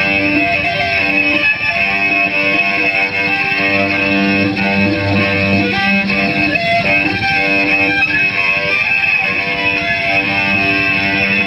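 Amplified cello played with the bow in an experimental noise piece: dense, overlapping sustained tones with a steady high ringing, the feedback tones that the programme draws from the instrument's body.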